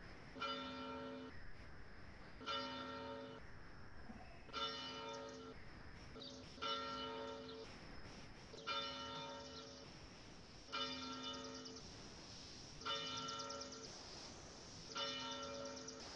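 A single church bell tolling at the same pitch, one stroke about every two seconds, each stroke ringing briefly before fading, typical of a bell tolled to call people to worship.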